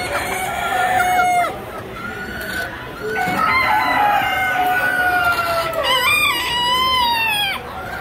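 Roosters crowing in a poultry barn, several long crows overlapping: one near the start, then a long drawn-out crow from about three seconds in, joined by a second crow near the end.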